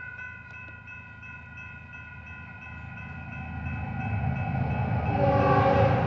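Grade crossing bell ringing while an approaching diesel freight train's rumble grows steadily louder. About five seconds in, the lead Union Pacific GE C45ACCTE locomotive starts sounding its Nathan K5HL five-chime horn.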